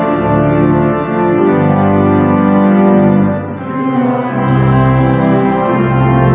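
Instrumental music of long held chords, the harmony changing about three and a half seconds in.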